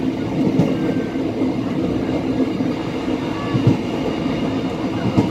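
Train running along the track at about 70 km/h, heard from inside the train: a steady rumble of wheels on rails with a low hum, broken by a few sharp clacks from the wheels.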